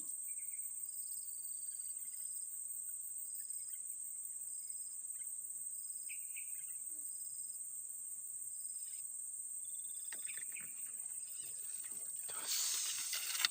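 Steady high-pitched insect chirring, with short repeated chirps from a second insect about once a second. A brief burst of noise comes near the end.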